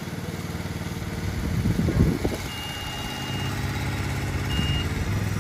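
Gasoline engine of an IMER Gerris 800 tracked concrete placing boom running steadily, briefly louder about two seconds in and a little louder again near the end. Two short high beeps sound in the second half.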